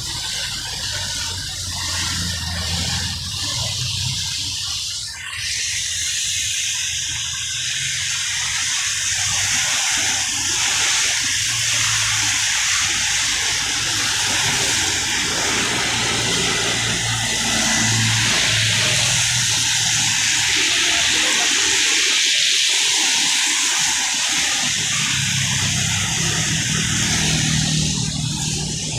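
Road traffic on a wet road: a steady watery hiss of tyres through standing water, with the low hum of car, truck and motorcycle engines coming and going as vehicles pass.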